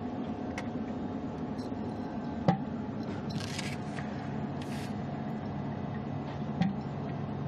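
Steady hum of the space station's cabin fans and ventilation, with brief rustling or scraping twice in the middle and a couple of small clicks.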